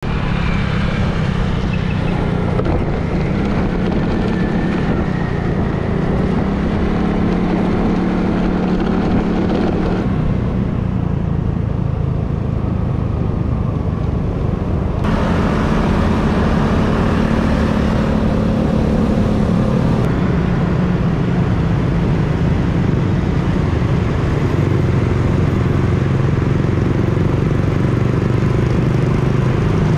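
Road traffic: vehicle engines running steadily under a haze of road noise, the sound shifting abruptly several times.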